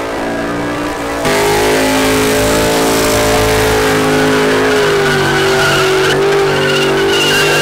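Compact pickup truck's engine held at high, steady revs during a burnout, its rear tyres spinning against the pavement. The sound jumps louder about a second in, and a faint high tyre squeal comes in near the end.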